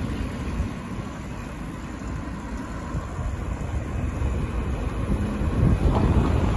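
Wind rumbling on the microphone of a moving bicycle, over the noise of street traffic; the rumble grows louder near the end.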